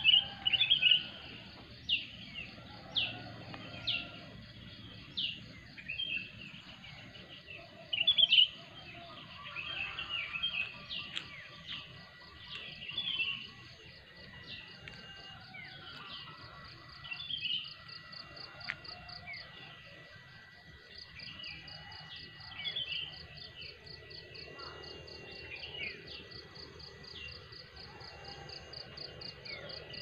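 Wild birds chirping and calling, with sharp chirps loudest in the first eight seconds or so. From about twenty seconds in, an insect trills in fast, even pulses, over a thin steady high tone.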